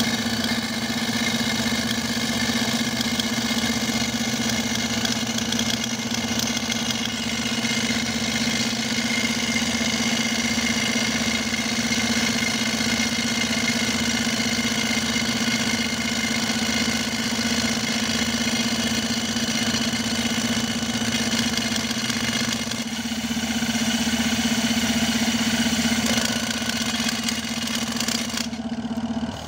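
Hand-held pneumatic rock drill, fed by hose from a tractor-driven compressor, hammering a hole into quarry rock with a loud, steady, hissing clatter over a constant hum. It stops just before the end.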